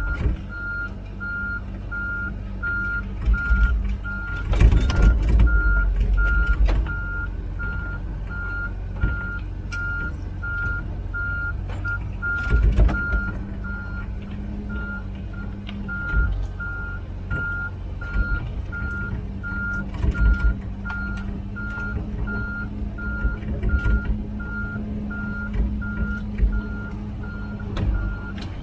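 Komatsu PC16 mini excavator travelling, its travel alarm beeping steadily about twice a second over the running diesel engine. Loud clunks and clatter come about five seconds in and again around thirteen seconds.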